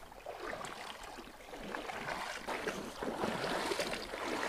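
Shallow rocky river water running and splashing, growing louder, with many small scattered splashes and clicks.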